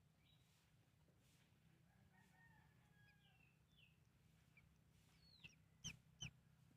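Faint peeping of newly hatched Muscovy ducklings: a few soft falling chirps, then two sharper, louder peeps near the end.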